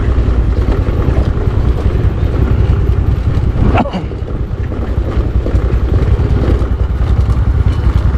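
Motor scooter ridden over a rough, rocky off-road track: a loud, uneven low rumble of engine and road noise that dips briefly about four seconds in.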